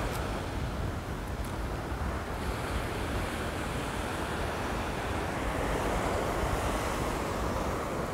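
Waves breaking and washing up a sandy beach in a steady rush, with wind buffeting the microphone in low rumbles.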